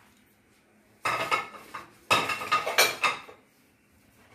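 Kitchen utensils and dishes clattering: two busy bursts of clinks and knocks starting about a second in and lasting about two seconds.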